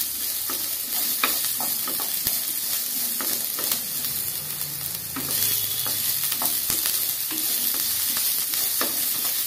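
Chopped onions sizzling in hot oil in a pan while a wooden spatula stirs them, with frequent light scrapes and taps of the spatula on the pan. The onions are being fried until they change colour.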